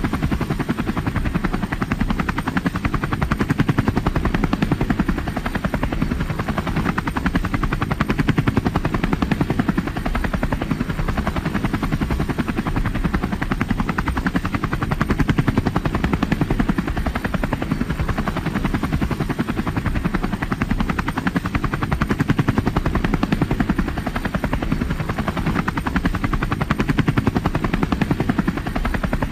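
Helicopter in flight: the steady, rapid chop of its rotor blades over engine noise, swelling slightly in loudness every few seconds.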